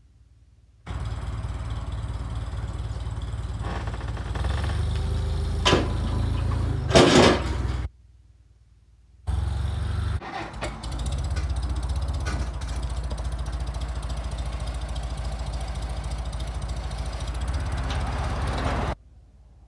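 A heavy engine running steadily, in two stretches that start and stop abruptly. The loudest sound is a pair of sharp clanks, about six and seven seconds in.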